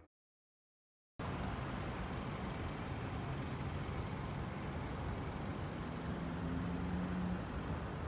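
City street traffic: a steady hum of road noise that starts after about a second of silence, with a car driving past.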